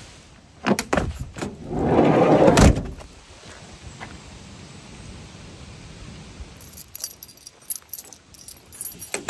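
Volkswagen Westfalia camper van's sliding side door pulled shut: a few knocks, then a loud rolling rush that ends in a slam about two and a half seconds in. Later comes a stretch of jingling keys, and a sharp knock at the end.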